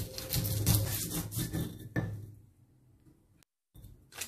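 Stone mortar and pestle: knocks and scrapes as the stone mortar is handled, then, after a short break, the pestle crushing coriander seeds and garlic in quick crunches, about three a second.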